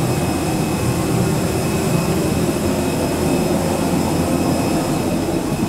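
Steady, loud drone of a parked jet airliner heard at its open cabin door during boarding, with a faint thin high tone over it.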